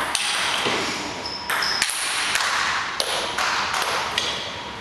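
Table tennis ball clicking off bats and table, a few sharp separate knocks over steady background noise.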